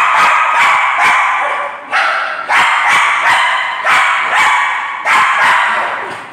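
Small spitz dog barking and yapping angrily in four long, loud bouts that each fade before the next begins.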